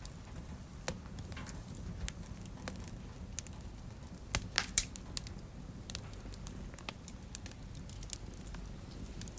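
Fire crackling in a fireplace: scattered sharp pops, with a quick run of louder pops a little before halfway, over a low steady rumble.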